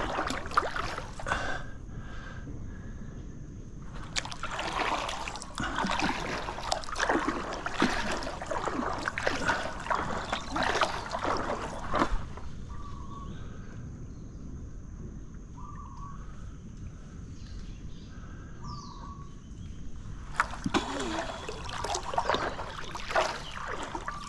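Water splashing and sloshing at a stand-up paddleboard as it is paddled, in three stretches: at the very start, from about four seconds in to about halfway, and again for the last few seconds. In between it is quieter, with a few short chirps and a faint steady high tone.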